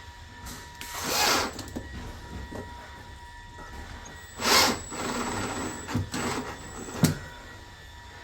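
Workbench handling noises: two brief scraping rushes, a few light knocks and one sharp click about seven seconds in.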